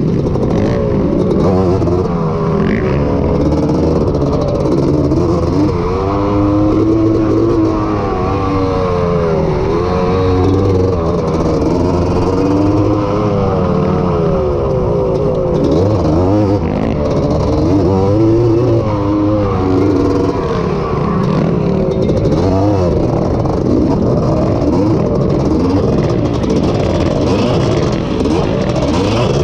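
Honda ATC250R three-wheeler's two-stroke single-cylinder engine heard from on board, revving hard with its pitch rising and falling every few seconds as the rider opens and closes the throttle and shifts.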